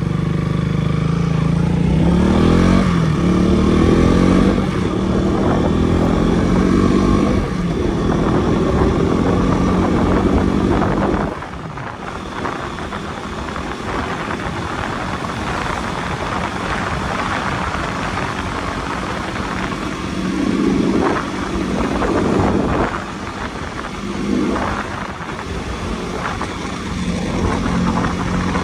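Motorcycle engine running while riding, its pitch rising and falling as it revs up and eases off, with a drop in loudness about eleven seconds in.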